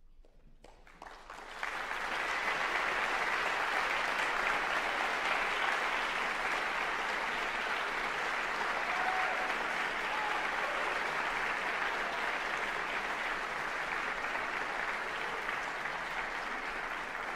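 Audience applauding, starting about a second in and quickly building to steady, sustained clapping.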